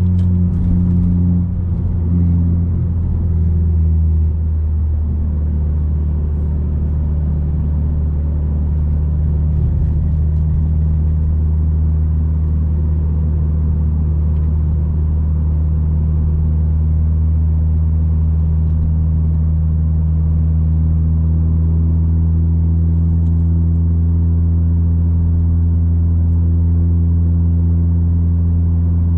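Audi A3 8P 2.0 TFSI's turbocharged four-cylinder, fitted with a 2.5-inch downpipe and catback exhaust, heard from inside the cabin while cruising with a deep steady drone. The revs shift a little in the first few seconds, then hold steady.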